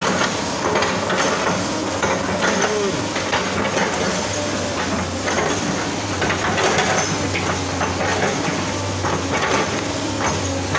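SANY hydraulic excavator's diesel engine running steadily under load as it pushes over oil palm trees. Frequent sharp cracks and clicks come from the trunks and fronds breaking.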